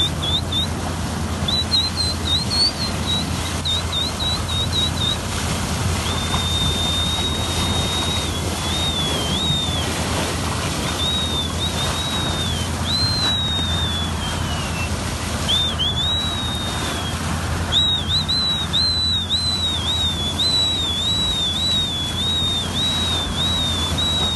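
Dolphins whistling: many short rising and falling whistles, some held briefly and some chirping in quick runs, over a steady low hum and a rushing noise from the boat and water.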